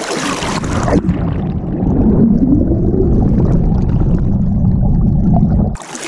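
Water splashing as a bass is released into the river. From about a second in, there is a loud, muffled rumble of moving water with all the high sound gone, as heard with the microphone dipped underwater. It opens up again just before the end.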